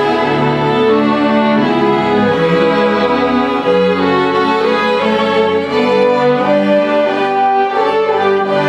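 Studio orchestra playing a held, sustained passage led by violins and cellos, its chords changing every second or so. The deepest bass notes stop about four seconds in.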